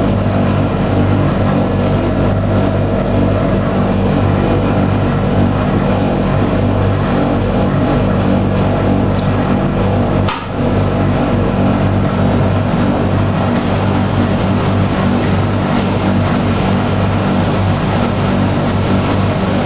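Electrolux commercial washing machine running with a loud, steady motor hum, dipping briefly about halfway through.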